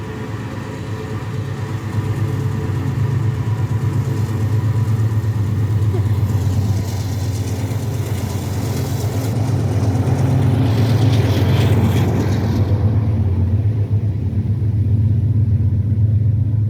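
A heavy engine running, a loud steady low rumble that grows gradually louder, with a hissing noise for several seconds in the middle.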